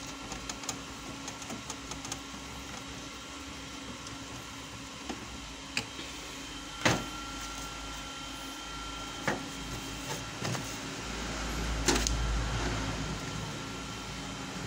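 A screwdriver turning a screw into a laser printer's frame with light clicking, then several sharp knocks and clicks as the printer is handled, the loudest about seven seconds in. A low steady hum runs underneath.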